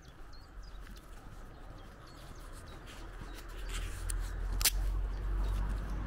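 Footsteps on a dirt track, with small birds chirping faintly in the background. From about halfway a low rumble of wind on the microphone builds, and one sharp click stands out near the end.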